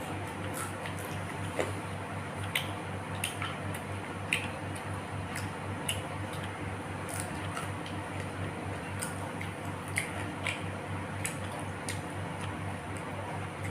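Close-miked eating sounds: wet chewing with irregular mouth clicks and smacks, over a steady low hum.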